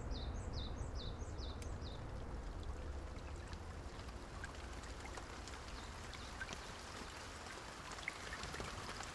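Faint, steady outdoor background noise, a low rumble with a soft hiss, with a small bird chirping a quick run of falling notes, about three a second, that stops about two seconds in.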